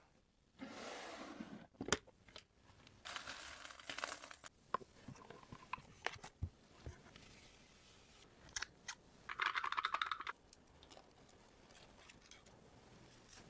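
Packing materials being handled while an order is packed: several bursts of crinkling, rustling and tearing, with sharp clicks and taps in between.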